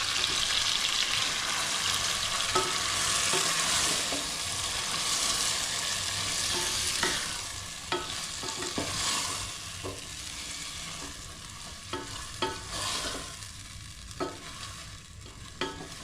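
Food sizzling in a hot pot while being stirred, with a spoon knocking against the pot every second or so. The sizzle is loud at first and quietens in the second half.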